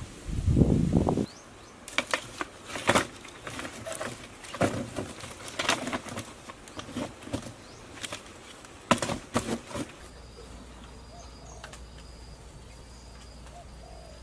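A low thumping sound briefly at the start. Then irregular rustling and sharp clicking for several seconds, as material is handled on the forest floor. Near the end an insect chirps in short, evenly repeated pulses over a faint steady hum.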